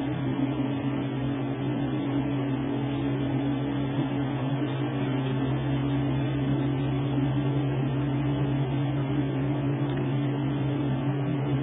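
Steady hum of a car running, with road noise, heard inside the moving car's cabin.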